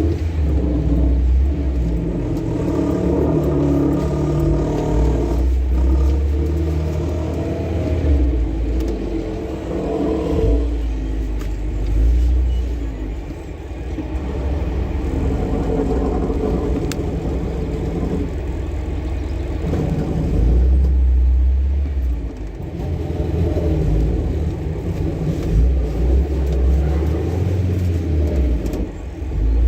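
A car being driven, heard from inside: a steady low rumble of road and engine noise that swells and eases over the stretch.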